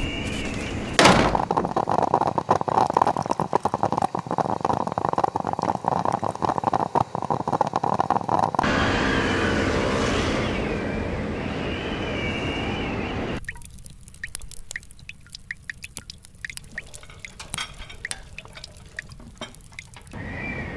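A run of water sounds: a knock about a second in, then water pouring in a crackling rush for several seconds, a smoother hiss with wavering high whistles, and in the last third a quieter patter of small drips and clicks.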